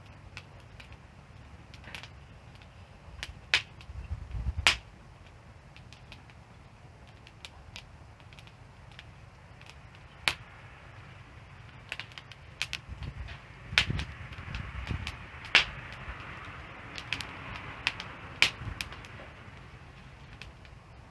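Wood fire crackling: irregular small ticks and several loud sharp pops over a steady low rumble of the flames, with a soft hiss swelling in the second half.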